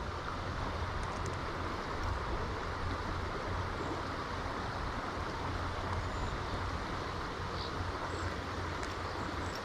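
Steady rush of river water running through a riffle, an even hiss with a low rumble underneath.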